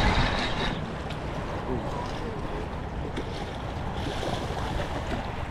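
Wind buffeting the microphone over small waves lapping at the water's edge.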